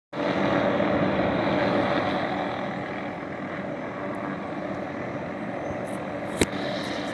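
Helicopter flying overhead, a steady drone that eases slightly after the first two seconds. A single sharp click about six seconds in.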